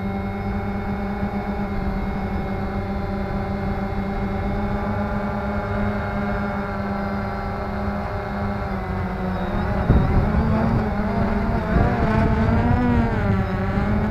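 Electric motors and propellers of a small radio-controlled drone, heard from a camera mounted on it, running with a steady whine. From about ten seconds in the motor pitches wander up and down separately as it comes down among the trees, with a knock about ten seconds in.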